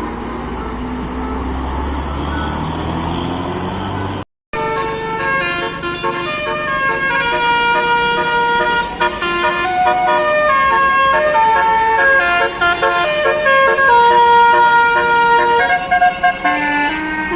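A bus engine revving, its pitch rising steadily, which breaks off suddenly about four seconds in. Then a bus's telolet basuri multi-tone musical horn plays a quick tune, several horn notes sounding together and stepping from note to note.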